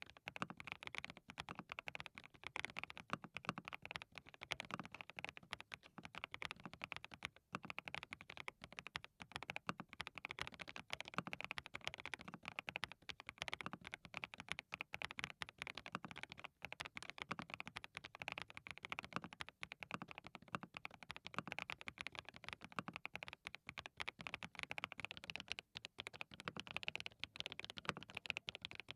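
Fast, continuous typing on a custom 87-key keyboard with hand-lubricated SWK Vertex V1 linear switches, a steady stream of keystroke clacks. Near the end the typing moves on to SWK 지음 V2 linear switches.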